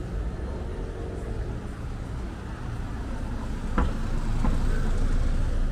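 A car driving slowly past close by on a narrow street, its engine and tyres giving a low rumble that grows louder in the second half. Two sharp knocks sound a little before the car is nearest.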